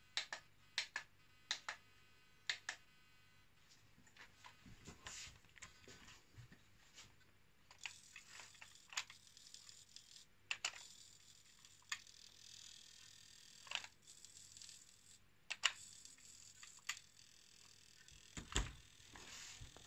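Sharp plastic clicks and knocks from handling a hard-plastic RC model tractor as it is lifted and turned over, some clicks in quick pairs at the start, with a faint hiss in the middle and a louder knock near the end.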